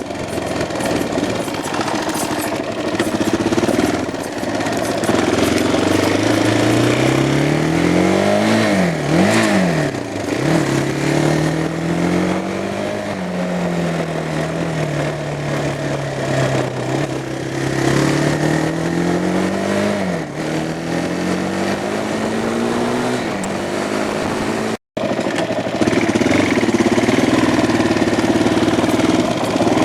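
2003 Suzuki LTZ 400 quad's single-cylinder four-stroke engine running after being restarted from a stall, its pitch rising and falling several times as the throttle is worked, then running more steadily near the end after a brief dropout.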